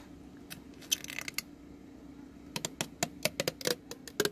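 Clear plastic protective film being peeled off an LED door sill plate, crinkling and crackling in a run of sharp clicks that come thickest in the second half.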